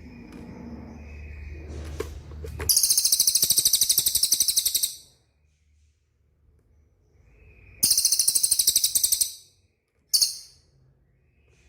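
Cililin songbird calling in rapid, very high-pitched rattling trills of about ten notes a second. Two trills last about two seconds each, and a short burst comes near the end.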